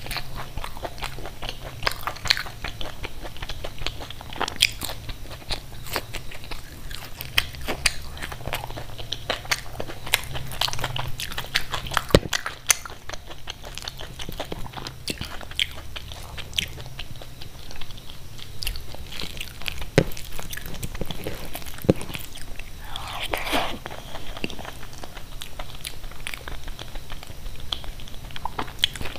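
Close-miked eating: crunchy bites of fried snacks and steady chewing. Many small mouth clicks run throughout, with a few sharper clicks now and then.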